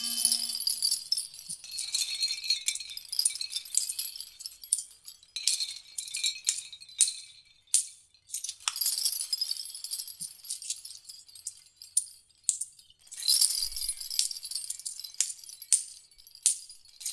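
Belts of 5.56 mm brass cartridges and their metal links clinking and jingling as they are pulled and linked together by hand, in quick, irregular metallic rattles.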